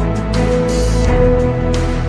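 Background pop music with a steady beat, in an instrumental stretch between sung lines.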